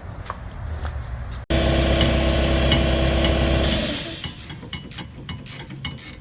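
An impact wrench runs steadily for about two seconds, starting suddenly about one and a half seconds in, while loosening a suspension nut. It is followed by a series of sharp metallic clicks from hand tools being handled.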